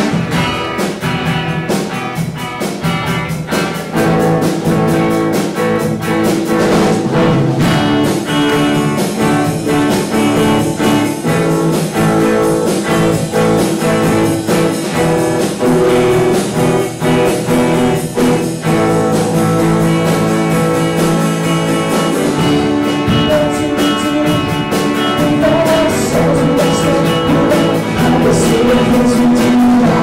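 Live band performance: an acoustic guitar and a drum kit playing a song together, with steady drum and cymbal strokes under the guitar.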